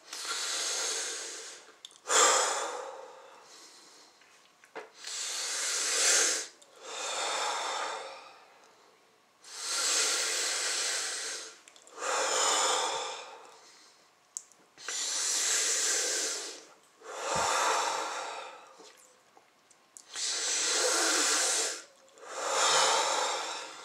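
A person taking slow, deep breaths through the mouth, in and out about ten times, each breath lasting a second or two: the deep breathing done before a breath hold.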